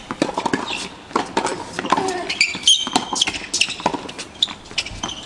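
Tennis being played: rackets striking balls and balls bouncing on the court, a string of sharp knocks at an irregular pace, with a few short high squeaks and faint voices.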